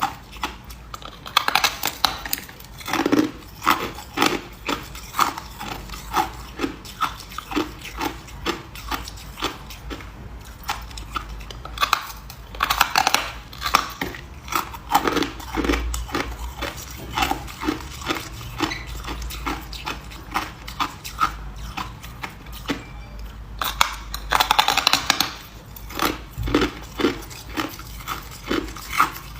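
A person chewing ice close to the microphone: a steady run of sharp crunches, about one or two a second, with denser, louder crunching about a second in, again around halfway, and again near the end.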